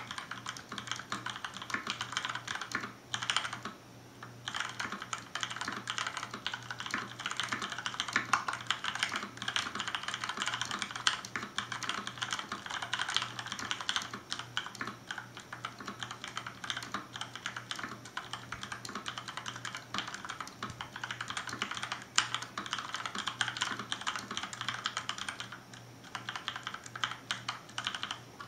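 Fast, continuous typing on a mechanical keyboard with Cherry MX switches, its rubberized tilt feet raised, which changes how it sounds. The key clicks come in quick runs, with a brief lull about three seconds in and another near the end.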